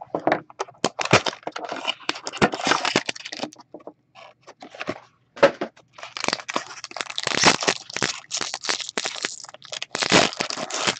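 Cardboard trading-card box and the pack wrapper inside being handled and torn open: irregular crackling and tearing with many sharp snaps, pausing briefly about four and five seconds in.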